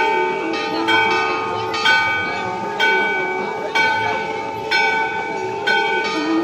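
Temple bells ringing for aarti, struck about once a second, each strike ringing on over a steady bell tone.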